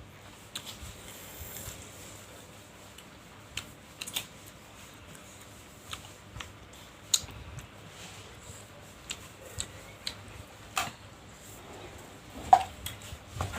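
Eating sounds: scattered soft clicks and taps of utensils, bowl and mouth, spaced irregularly, with a louder tap near the end.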